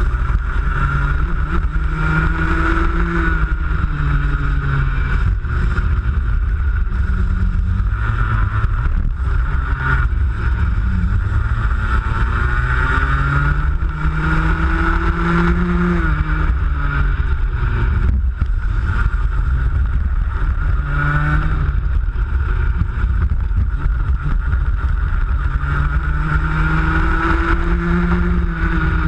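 Racing kart engine heard onboard, revving up and down: its pitch climbs several times and falls back again. A heavy low rumble runs under it.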